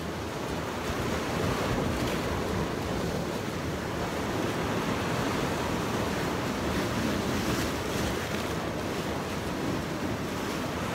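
Sea waves washing and breaking against the rocks at the water's edge, a steady surf noise, with wind buffeting the microphone.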